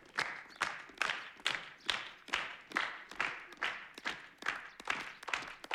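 A group of people clapping in unison to a steady beat, about two and a half claps a second.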